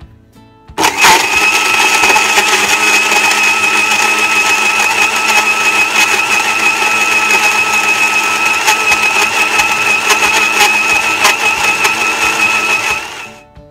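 Countertop blender switched on about a second in, its motor running with a steady high whine as it blends frozen açaí pulp, milk and ice cubes, with scattered sharp clicks as frozen pieces hit the glass jar. It winds down and stops shortly before the end.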